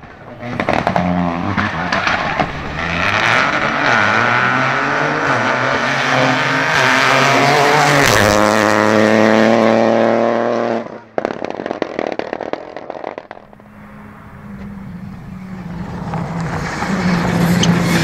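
A rally car's engine runs at full throttle, its pitch climbing as it accelerates, with a gear change about eight seconds in; the sound cuts off abruptly about eleven seconds in. After that a second rally car, a Citroën C3 R5, is heard approaching, its engine growing steadily louder toward the end.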